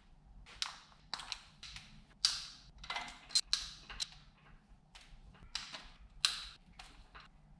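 Hand socket ratchet clicking in short, irregular bursts while backing out valve cover bolts, a few sharp ticks at a time with brief pauses between strokes.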